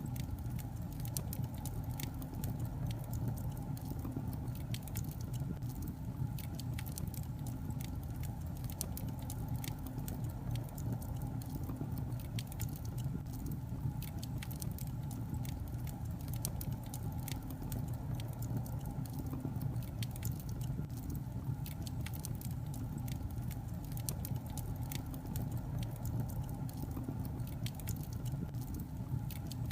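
Wood logs burning in a fireplace: a steady low rumble of flames with frequent small crackles and pops scattered irregularly throughout.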